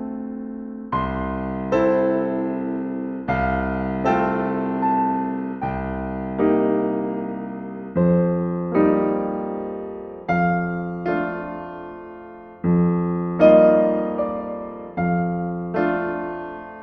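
Solo piano playing a slow, calm piece: a bass note followed by a chord, repeated about every second and a half, each left to ring and fade.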